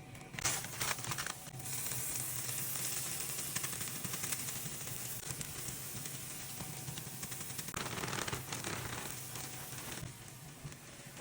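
Chicken fried rice sizzling in a hot pan, a steady frying hiss that swells louder briefly about half a second in and again around eight seconds.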